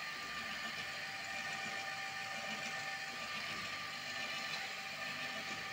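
Electric 220 V hose reel's motor running steadily as it winds the spray hose onto its drum, a constant hum with a few fixed tones.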